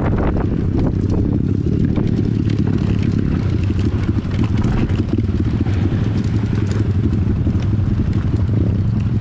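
Pit bike engine running at steady throttle while riding a rough dirt trail, recorded from on the bike, with many small rattles and knocks from the bike over the bumps.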